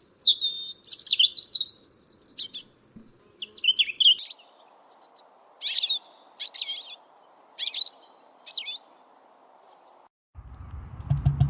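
A songbird singing a string of short, varied, high-pitched chirps and warbled phrases, with brief pauses between them. Near the end the song stops and a low rumble cuts in.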